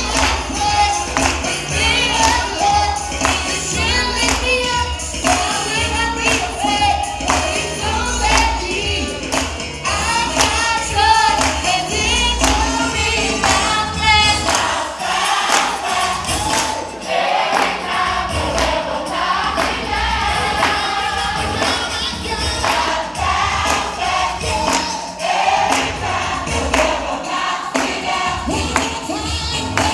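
Youth gospel praise team singing a praise song together in harmony, over band backing with a steady bass line and a tambourine keeping the beat.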